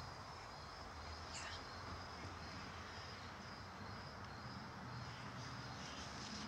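Faint evening outdoor ambience with crickets chirping steadily, over a low hum.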